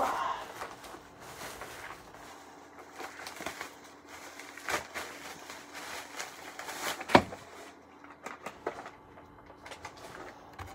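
Handling noises of a toy being unpacked: rustling with scattered clicks, and a sharp knock about seven seconds in.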